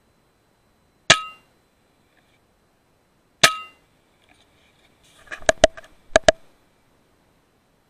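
FX Impact M3 .22 PCP air rifle firing: two sharp cracks with a short metallic ring, about a second in and again a couple of seconds later, then four quicker sharp clicks in two close pairs near the end.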